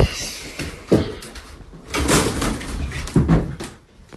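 A series of knocks and bangs, about one a second, with rustling and scraping between them.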